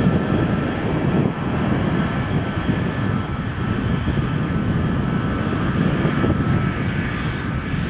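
Turbofan engines of a Boeing C-17 Globemaster III running on the ground: a steady, loud jet rumble with a faint high whine that fades near the end.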